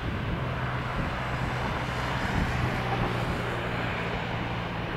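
A Boeing 737-300's jet engines running at taxi power as the airliner rolls along the taxiway: a steady rush with a low hum underneath.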